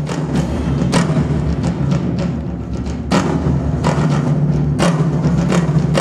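Percussion-led music over a steady low drone, with loud drum strikes at uneven intervals, the strongest about a second in, near three seconds and near five seconds.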